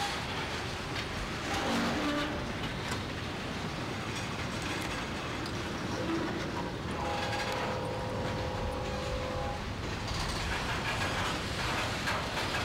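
Train running past with steady rail noise. About seven seconds in, a horn sounds one held chord for roughly two and a half seconds.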